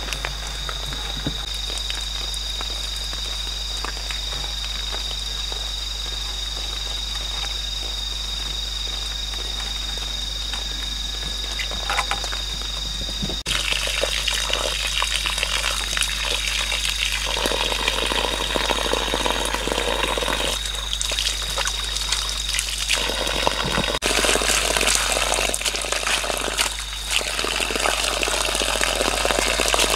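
A steady high-pitched drone of forest wildlife, with a few light knocks of hands on bamboo. About halfway through, water pouring from the end of a bamboo pipe starts to splash onto wet, muddy ground, and it keeps splashing to the end.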